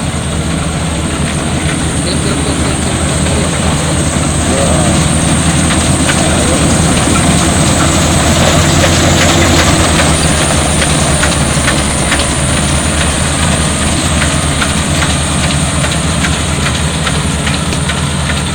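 Rice combine harvester running steadily: a loud engine drone under a thin, high, steady whine, with scattered clicks from the machinery.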